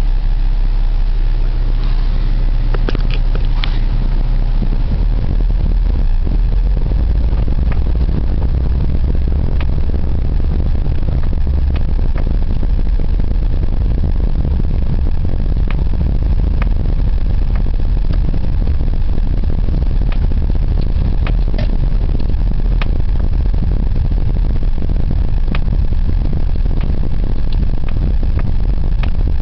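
Daewoo Lanos driving, with a steady low road and engine rumble and irregular sharp knocks from the suspension every second or few, a few bunched together about three seconds in. The knocking over the road is the sign of a suspension fault.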